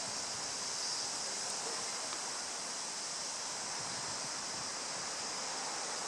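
Steady outdoor background hiss, even and unbroken, strongest in a high band; no bird calls stand out.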